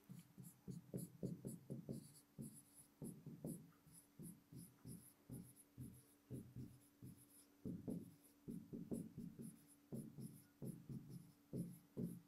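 Stylus writing by hand on an interactive touchscreen board: a faint, quick run of taps and scratches in short bursts, with brief pauses between words.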